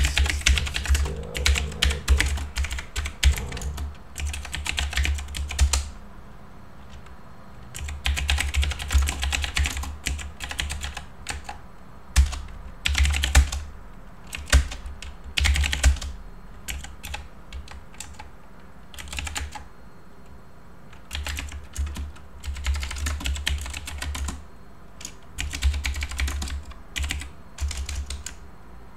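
Fast typing on a computer keyboard in runs of rapid keystrokes broken by pauses of a second or two, the key clicks carrying a dull low thump.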